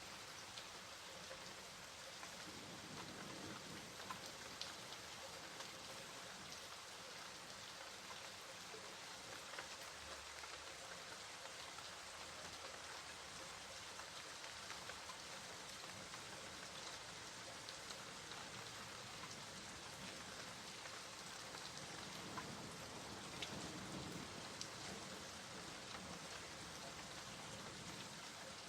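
Steady rain falling, with scattered faint drop ticks.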